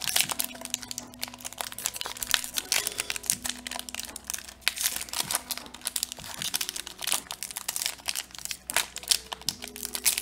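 Foil wrapper of a Magic: The Gathering booster pack crinkling and crackling as it is opened and handled along with its cards, in a dense run of small crackles.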